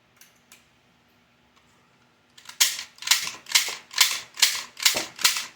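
Toy foam disc shooter fired rapidly, about seven shots roughly two a second starting a couple of seconds in, each a short sharp puff. It is double action and slam fires, priming itself with each trigger pull. A couple of faint clicks come just before the shots start.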